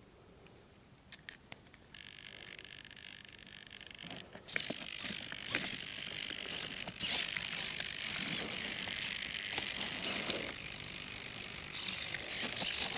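Hexapod robot's eighteen Hitec HS-225BB hobby servos powered up and humming: a few clicks, then a steady high whine about two seconds in that gives way to a denser buzz with many clicks from about four and a half seconds. The servos are being maxed out.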